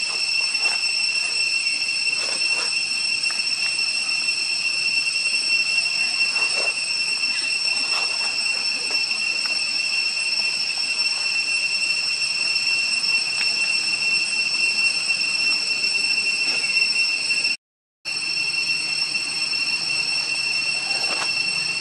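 Steady high-pitched insect chorus, a continuous shrill drone that drops out for about half a second near the end.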